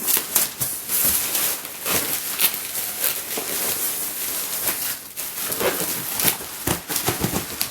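Cardboard and packing material rustling, crinkling and scraping with irregular small knocks as a large boxed item is pulled out of its shipping package.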